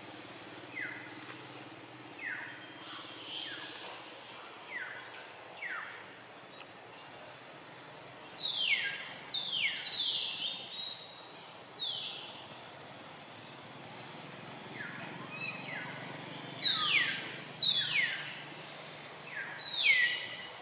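Birds calling: short notes that drop sharply in pitch, coming singly at first and then in quick runs, loudest around the middle and near the end, over a faint steady outdoor background hum.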